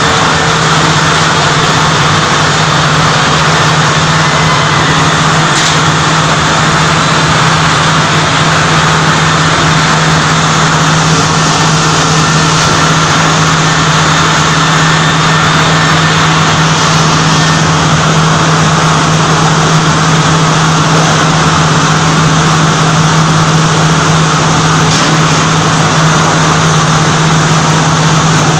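Multi rip saw woodworking machine running steadily: a constant low motor hum over a broad, even whirring noise.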